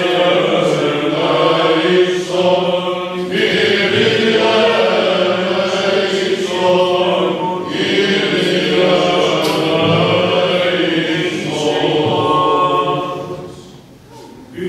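Greek Orthodox Byzantine chant: voices singing a slow hymn in long held notes over a steady low drone. The singing dips away briefly about a second before the end, then resumes.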